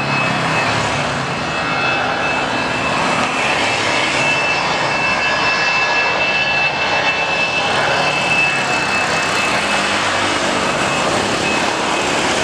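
Airbus A320-216's CFM56 jet engines at takeoff thrust as the airliner accelerates down the runway: a loud, steady rushing noise with a high whine over it.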